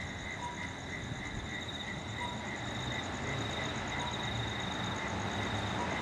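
Night insects chirping steadily: one pulsing about three times a second over a continuous higher trill, with a low traffic rumble that grows slightly toward the end.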